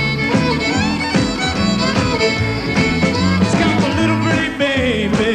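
Lively band music with a fiddle playing over a steady beat and bass line.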